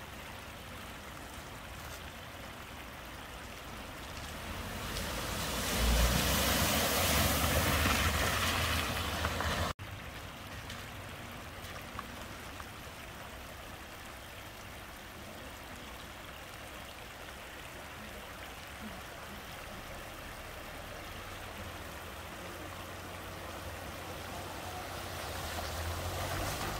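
Steady rush of floodwater flowing over a road ford, with a car driving slowly through it near the end, its tyres swishing and splashing through the water. About five seconds in a much louder rush of water noise swells for several seconds and then cuts off abruptly.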